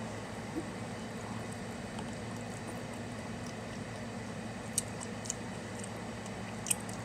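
A person slurping and chewing ramen noodles, soft wet mouth sounds over a steady low hum, with a few short sharp clicks about five seconds in and near the end.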